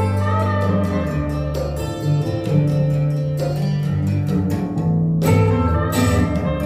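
Instrumental music, with guitar, strings and sustained bass notes, played back through an IKEA Eneby speaker pair set up as a stereo set.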